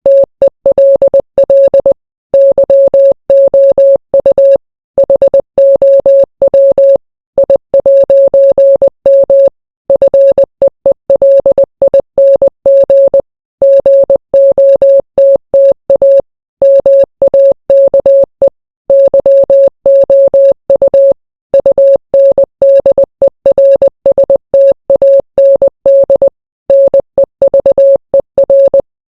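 Morse code sent as a single steady electronic beep, keyed on and off in fast dots and dashes, with brief pauses between groups every two to three seconds.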